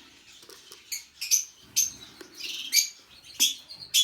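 Budgerigar chicks, about four weeks old, giving short high-pitched chirps: about six separate calls, with gaps between them.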